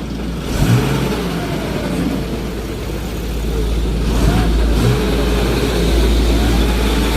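A vehicle engine running, its revs rising and falling, with a deep rumble that grows louder about three seconds in.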